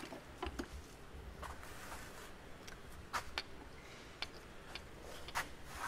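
Irregular light clicks and taps of metal hand tools being handled: a hammer taken from a toolbox drawer and its handle set against a connecting rod to tap a piston out of the engine block.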